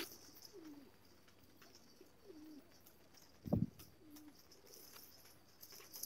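Domestic pigeons cooing softly: three short, low, wavering coos about two seconds apart, with a single dull thump about halfway through.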